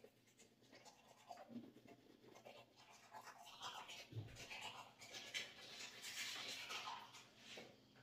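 Manual toothbrush scrubbing teeth: faint, irregular scratchy brushing strokes that grow louder and busier in the second half.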